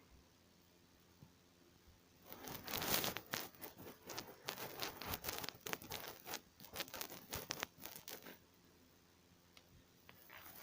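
A close, crackling rustle, made of many small clicks, starting about two seconds in and stopping about two seconds before the end.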